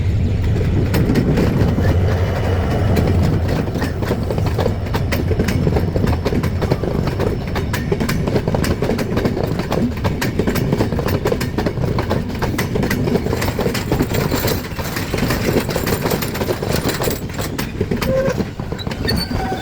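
Passenger train running along the track: a steady low rumble with frequent sharp clicks and clacks of the wheels over rail joints.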